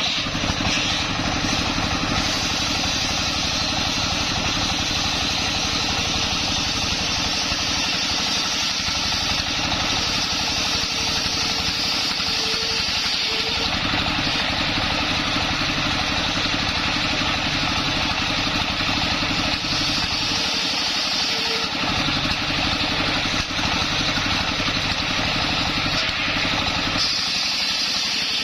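A stationary single-cylinder diesel engine runs steadily, belt-driving a large circular saw blade as it rips a sengon log lengthwise. The saw's cutting noise rides over the engine's steady beat and is strongest in the first half and again near the end.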